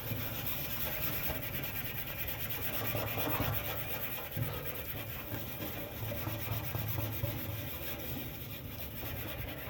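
Steel wool scrubbing a stainless steel grill surface in quick, steady back-and-forth strokes: a continuous scratchy rubbing, the rust spots being scoured off with stainless polish.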